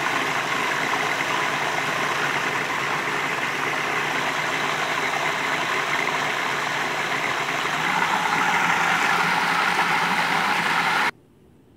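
Food processor motor running steadily as its blade churns cultured cream into butter. It grows a little louder about eight seconds in, then is switched off and stops abruptly near the end.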